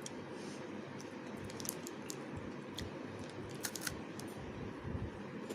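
Close-up chewing of a crunchy Munch wafer chocolate bar, with scattered short crunches and clicks and soft low thuds of the jaw.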